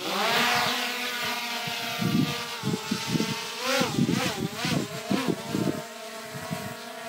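DJI Mavic Air 2 quadcopter drone's motors spinning up for take-off, then a steady high-pitched whine as it lifts off and hovers, the pitch wavering up and down around the middle as the motors correct. Gusts of wind rumble on the microphone underneath.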